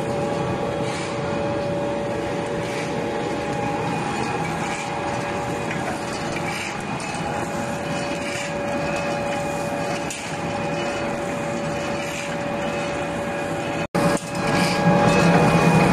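Wood and rice-husk pellet production machinery running: a steady mechanical din with a couple of steady whining tones and faint irregular knocks. Near the end it cuts out for an instant and comes back louder and deeper.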